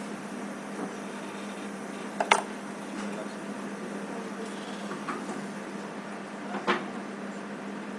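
Small metal hand tools, a wax carving knife and a steel ruler, handled against a dental wax block: two sharp clicks, one a little over two seconds in and one near the end, over a steady low hum.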